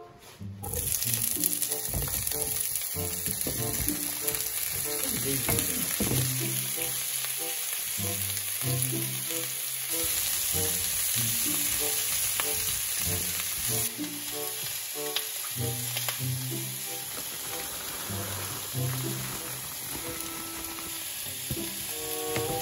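Sliced peppers and red onion sizzling as they fry in oil in a frying pan, stirred with a wooden spoon; the sizzle starts suddenly about a second in. A quiet melody of background music plays underneath.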